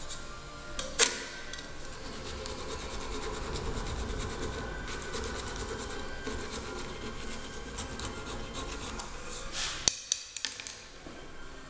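Hand file rasping back and forth over a silicon bronze weld on a blade held in a bench vise. There is a sharp knock about a second in, and a few clattering knocks near the end as the file comes down on the steel bench.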